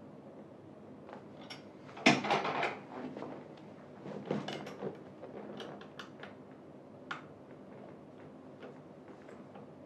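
Handling noises of gaming-chair assembly: a loud clatter about two seconds in, then scattered light clicks and knocks as parts and screws are worked.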